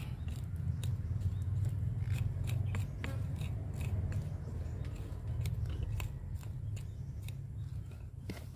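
Small pointed hand tool scratching and picking through dry soil and fine roots at the base of a Wrightia religiosa tree, a run of irregular small clicks and crackles. A steady low rumble runs underneath.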